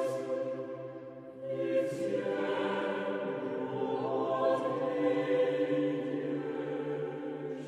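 Choir singing a slow chant in long held chords over a steady low bass note, with a short break between phrases about a second and a half in.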